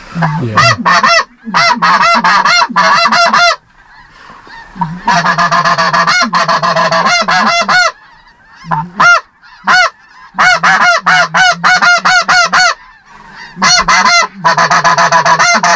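Goose calls blown by hunters in the blind: loud, quick runs of rising-and-falling notes in bursts of one to three seconds with short pauses, calling to geese circling overhead.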